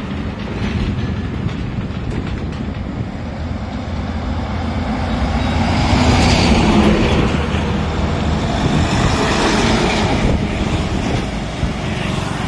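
Heavy trucks passing close on a highway: engine drone and tyre rumble. It grows loudest about halfway through as a truck pulling a tipper semi-trailer goes by.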